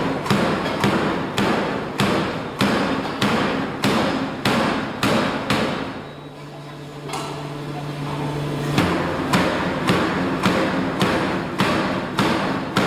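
Forging hammer striking hot metal in a steady rhythm, about two blows a second. About halfway through the blows stop for some three seconds while a steady machine hum is heard, then the hammering resumes.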